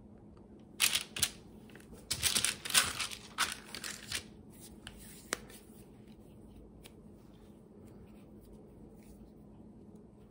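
Excess Crayola Model Magic being scraped off a silicone mould with a table knife: a cluster of short scraping strokes in the first few seconds and a single click, then only faint handling of the clay.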